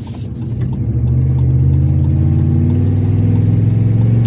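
Car engine heard from inside the cabin, accelerating: it gets louder about a second in, then its pitch climbs slowly and steadily.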